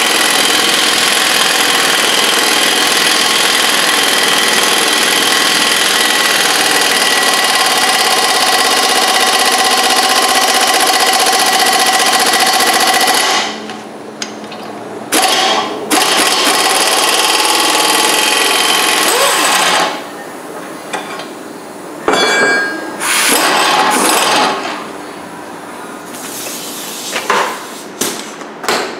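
Impact wrench hammering continuously for about thirteen seconds, then in several shorter bursts with pauses between. It is turning the screw of a hub bearing press to drive a new front wheel bearing into the steering knuckle.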